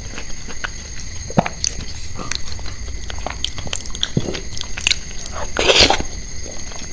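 Close-miked eating: chewing and biting with small wet mouth clicks throughout, and one louder bite or crunch near the end.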